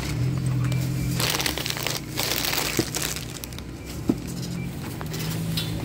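Plastic produce bags crinkling and rustling as bagged groceries are handled, with a few light knocks and a low steady hum underneath.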